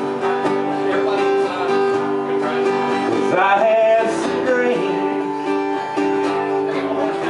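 Acoustic guitar strummed in steady, ringing chords. A man's voice sings a short phrase over it about halfway through.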